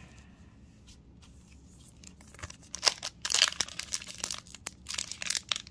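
Foil Yu-Gi-Oh! booster pack wrapper crinkling and tearing as it is opened. It starts about halfway through as a run of irregular crackles.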